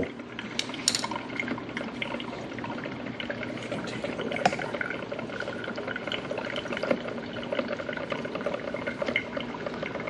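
Mr. Coffee 12-cup drip coffee maker brewing: hot water sputters and trickles from the spray head onto the grounds in the filter basket, a steady crackly patter. A couple of light clicks come about a second in.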